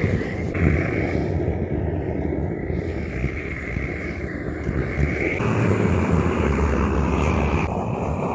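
Hand-pumped liquid-fuel blowtorch burning with a loud, steady rushing noise as its flame singes the hair off a moose's head and lip.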